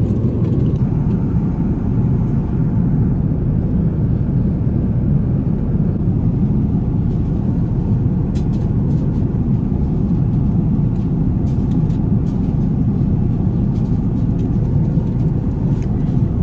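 Steady drone of a jet airliner's cabin in cruise, engine and airflow noise, with a few faint clicks in the second half.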